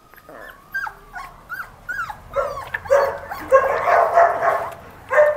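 Labrador puppy whining and yelping in short cries that bend up and down in pitch, while held to be given a dose of dewormer syrup. The cries grow louder and come close together about halfway through.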